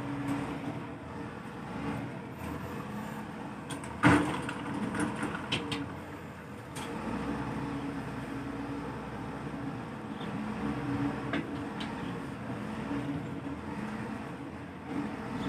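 Wheel loader's diesel engine running at work, its pitch rising and falling as it revs, with one sharp bang about four seconds in and a few lighter knocks later.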